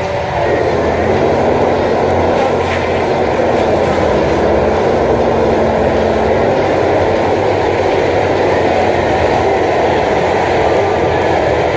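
Heavy forestry machine running steadily, with a faint steady hum underneath that fades out about seven seconds in.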